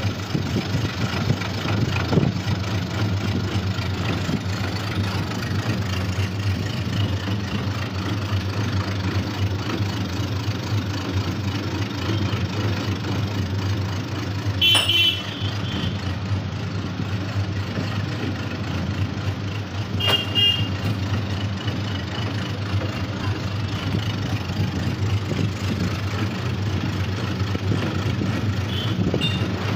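Line-boring machine running steadily with a constant motor hum as its boring bar turns through the bore of a cast-iron tractor hydraulic lift housing. Two short metallic clinks ring out, about halfway through and again some five seconds later.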